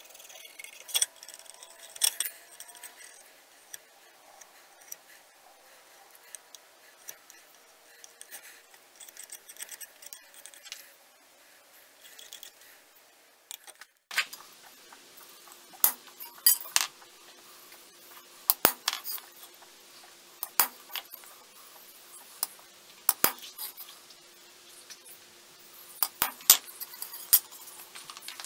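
Scattered light metallic clicks and clinks as the steel kukri blank and small marking tools are handled and set down on the bench, growing sharper and more frequent about halfway through.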